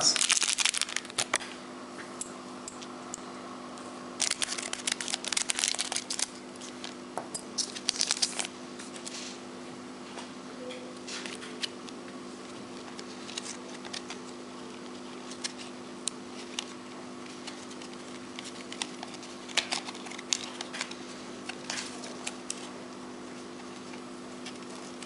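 A trading-card pack's wrapper being torn open and crinkled, then the cardboard cards being handled and flicked through: short bursts of rustling and clicks, the busiest in the first eight seconds, over a steady low hum.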